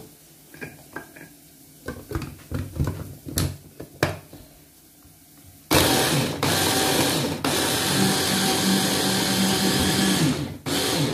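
Clicks and knocks as a Philco 3-in-1 hand blender's motor unit is fitted onto its chopper bowl. Then, about halfway through, the motor runs in four pulses, the longest about three seconds, as the blade chops cabbage.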